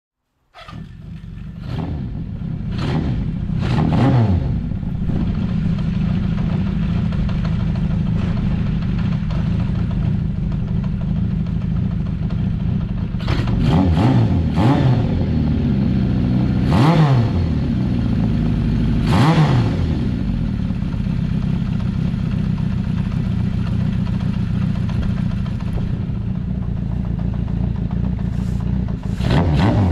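Motorcycle engine, the restored 1981 Kawasaki Z550's air-cooled inline-four, running steadily while the bike is ridden, starting abruptly about half a second in. Several times the sound swells and sweeps in pitch as the bike goes by close.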